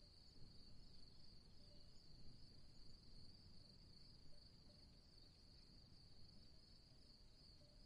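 Faint, steady, high-pitched insect trill that never breaks, over a low rumble.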